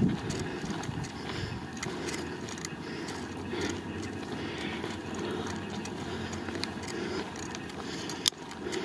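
Outdoor ambience: a steady low rumble of wind on the microphone, with scattered faint ticks and one sharp click near the end.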